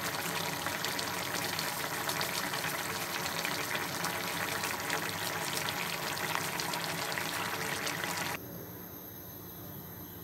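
Sliced bottle gourd boiling hard in a pan of its own released juices and a little added water: steady bubbling with fine crackles. About eight seconds in it cuts off abruptly to a quiet hum.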